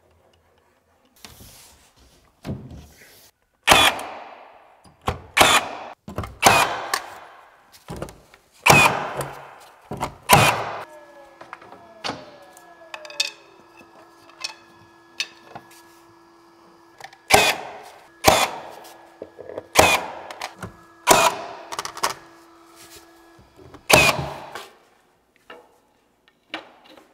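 Cordless nailer firing into plywood trim: about fourteen sharp shots at uneven intervals, each with a short ring after it. A faint steady hum sounds under the shots in the middle stretch.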